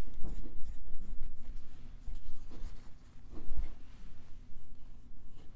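Paintbrush stroking paint onto a laser-cut wooden piece: soft, irregular brushing and scraping strokes, with a few low bumps and a steady low hum underneath.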